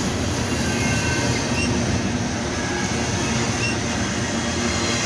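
Freight train running, a loud steady rumble, with a few brief high-pitched squeals over it now and then.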